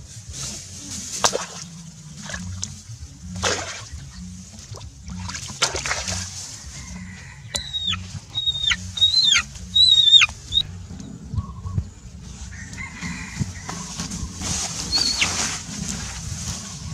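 A chicken calling: a quick run of about six high, sharp peeps, each dropping in pitch, in the middle of the clip. Brief rustles come before and after.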